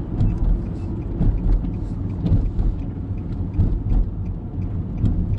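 Road noise inside a moving car: a steady low rumble of tyres and engine, with faint irregular ticks over it.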